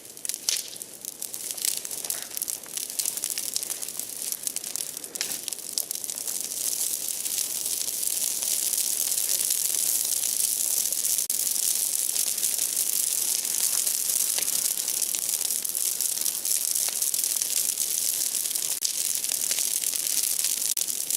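Large outdoor bonfire of broken tree branches burning: a dense hiss full of sharp crackles and pops. It grows louder over the first several seconds, then holds steady.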